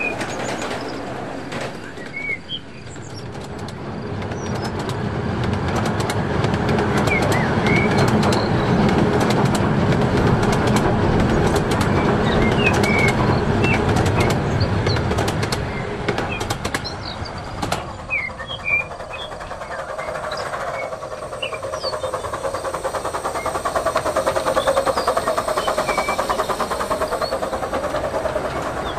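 Small-scale model trains running on the layout's track: a steady rumble with the wheels clicking over the rail joints, loudest in the middle. Near the end a train passes close, with a hum that rises and falls as it goes by.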